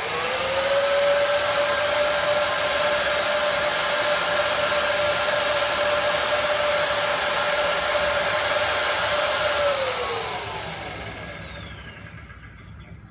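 Cayken KCY-100/3WDO magnetic drill's motor switched on, whining up to speed at once and running at a steady high pitch for about ten seconds, then switched off and winding down in a falling whine over the last three seconds.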